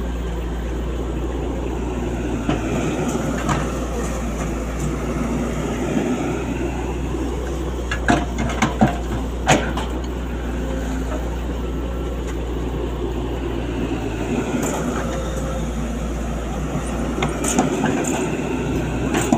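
Sany SY135F excavator's diesel engine running steadily under work, with a whine that rises and falls twice. A few sharp knocks come about eight to ten seconds in and again near the end.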